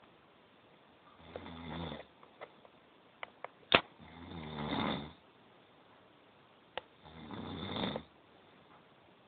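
A sleeping person snoring in slow, regular breaths: three drawn-out snores about three seconds apart, each lasting around a second. A few sharp clicks fall between them, the loudest just before the second snore.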